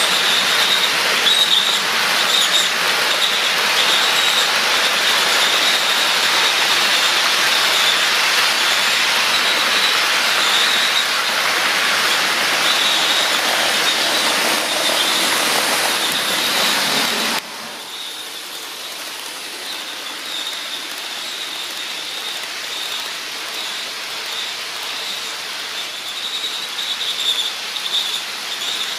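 HO scale model freight trains running on track: a steady rushing of wheels on rail with a thin high whine over it. About seventeen seconds in the sound drops suddenly to a quieter level and carries on.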